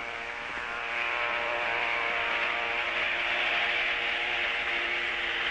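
Motorboat engine running steadily with the rush of its wake, getting louder about a second in.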